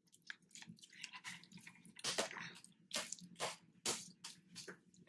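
Slime being squeezed and worked by hand, with irregular wet squelches and sticky pops.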